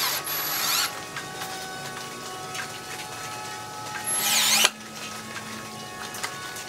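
Cordless drill/driver run twice in short bursts, about a second and then about two-thirds of a second, each stopping abruptly, as when driving screws. Background music plays throughout.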